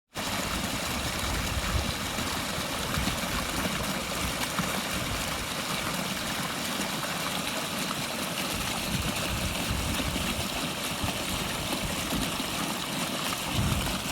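Pondless waterfall running: a steady rush of water pouring and splashing over the rocks, with a fluctuating low rumble. The flow is strong and full, with new foam between the rocks keeping the water in the stream bed.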